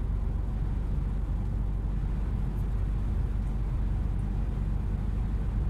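Vehicle's engine and tyre noise heard from inside the cab while cruising at a steady speed: a steady low drone.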